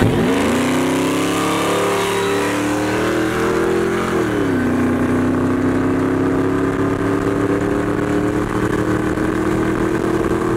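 Pickup truck engine under hard acceleration at freeway speed, heard from inside the cab. The revs climb steadily, drop with an upshift about four seconds in, then climb again.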